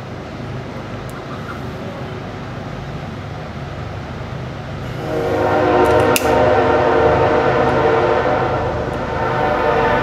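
Butane jet lighter hissing steadily as its flame dries a gasoline-soaked spark plug. About halfway through, a louder steady horn-like chord of several pitches comes in and holds, with a sharp click about six seconds in.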